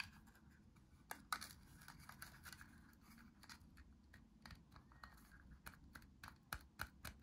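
Hard plastic toy-food pieces handled in the fingers, giving light irregular clicks and taps, with a sharper click just after a second in and a quicker run of small ticks in the second half.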